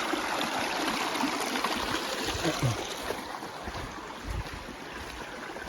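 Stream water rushing steadily, with a few dull low thuds.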